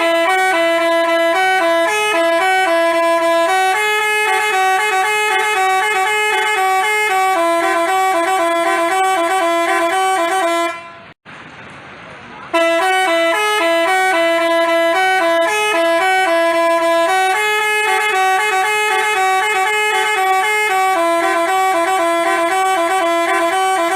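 Basuri telolet bus horn playing a tune of bright stepping notes. The same phrase plays twice, with a short break a little under halfway through.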